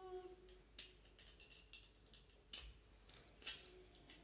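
Plastic Lego bricks clicking and knocking together as pieces are handled and fitted, a few separate sharp clicks, the loudest about two and a half and three and a half seconds in.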